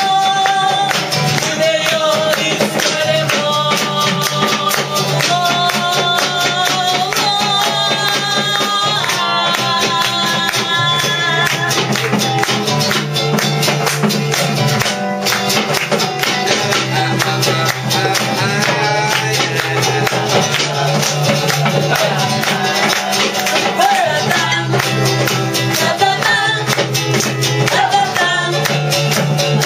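Live band music: a woman singing lead into a microphone over a strummed guitar, with a man's voice singing along, and a steady fast rhythm throughout.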